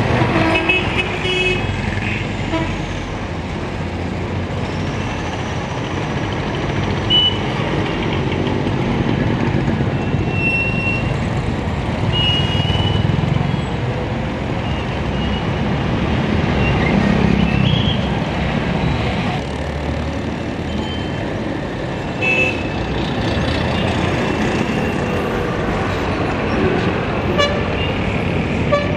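Busy street traffic: engines of buses, cars, motorcycles and three-wheeled auto-rickshaws running and passing, with several short horn toots.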